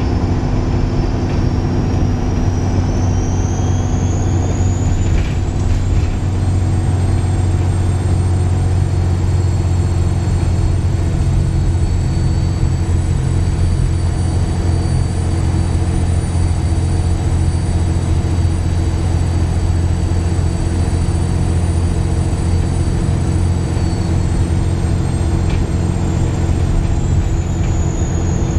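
Dennis Trident 2 double-decker bus under way, its engine running with a steady low rumble under a loud, squealing turbocharger whistle. The whistle rises in pitch a few seconds in, holds steady, then falls back near the end.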